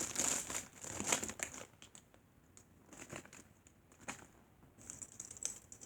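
Crinkling and rustling from squishy toys being handled and stacked: dense for the first second and a half, then a few scattered taps, and another short burst of rustling near the end.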